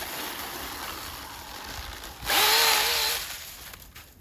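RC snowmobile's electric drive on a 3S battery running with a whirring whine; about two seconds in it goes sharply louder, the whine rising in pitch as it is throttled up, holding for about a second, then fading near the end as it pulls away.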